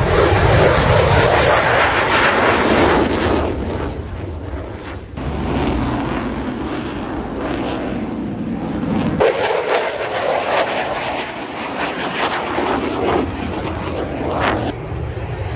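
Delayed boom of the airshow's wall-of-fire pyrotechnic explosion arriving: it starts suddenly, stays loud and deep for about five seconds, then eases into a steadier, lower roar.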